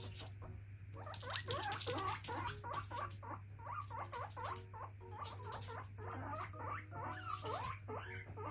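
Guinea pig squeaking in a rapid run of short chirping calls, several a second, starting about a second in: a demand call for its pellets. Its claws patter on the floor among the calls.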